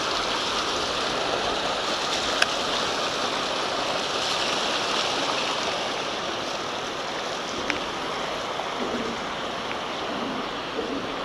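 Steady rush of water pouring through a dam spillway and river channel, with a short tap about two seconds in.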